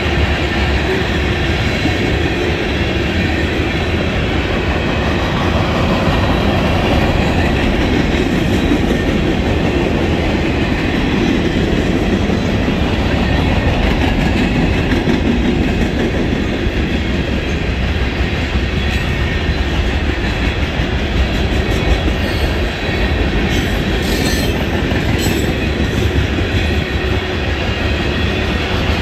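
Freight cars of a long CSX freight train rolling past close by: a steady, loud rumble of steel wheels on rail that holds without a break.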